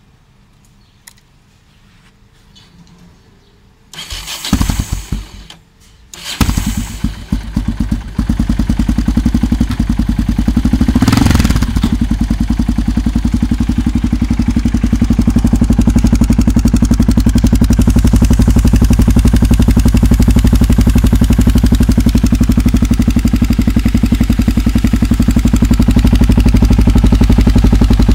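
Yamaha XT 600's single-cylinder four-stroke engine through a GPR Furore aftermarket silencer, started from cold: after about four seconds of quiet it is cranked over, fires unevenly and catches about six seconds in. It is revved briefly once around eleven seconds in, then settles into a loud, steady idle.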